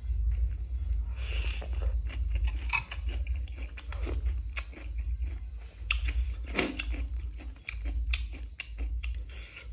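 Close-up chewing and crunching of food in the mouth, with many small clicks of a spoon and chopsticks against the plate, over a steady low hum.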